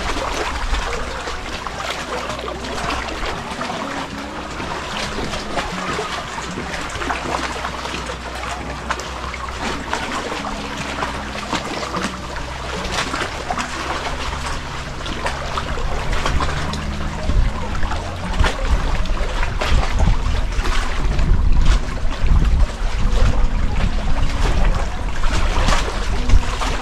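Shallow seawater splashing and trickling as someone wades through it along a rocky shore, with small irregular splashes throughout. A low rumble grows louder in the second half.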